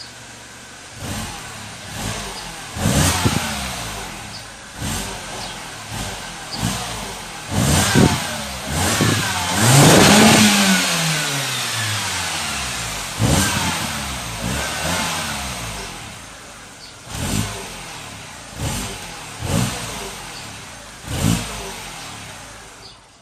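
MINI Cooper R57's 1.6-litre naturally aspirated four-cylinder engine, heard through its original exhaust, idling and then revved in a series of short throttle blips, each rising and falling back. About ten seconds in comes one longer, higher rev that winds down slowly; the sound drops away at the very end.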